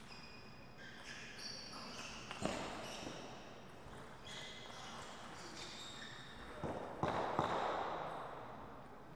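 Table tennis rally: a few sharp ticks of the ping-pong ball off paddles and table, with short high squeaks of shoes on the sports floor. A louder cluster of knocks and a swell of noise come about seven seconds in, as the point ends.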